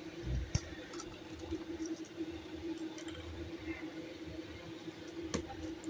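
Banana fritters (gulgule) deep-frying in hot oil in a metal kadai, a faint steady sizzle, over a steady low hum. A metal slotted spoon clicks against the pan twice, about half a second in and near the end.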